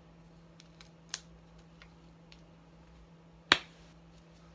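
Hand pressing an adhesive bandage onto a wrist: a few faint ticks, a sharp click about a second in, and a louder single sharp click about three and a half seconds in.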